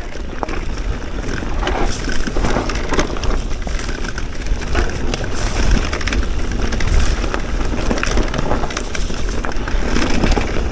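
Electric enduro mountain bike riding down a rough trail: tyres crunching over stones and the bike rattling with many irregular knocks, under heavy wind buffeting on the microphone.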